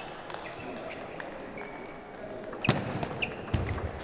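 Table tennis rally: sharp clicks of the ball off paddles and table, with a louder hit about two-thirds of the way through, short squeaks and a low thud of footwork near the end. Fainter ball clicks from other tables run throughout in a large, echoing hall.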